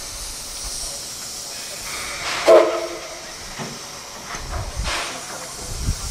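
Steam locomotive hissing as it vents steam, with a few swells in the hiss and one short pitched sound about two and a half seconds in.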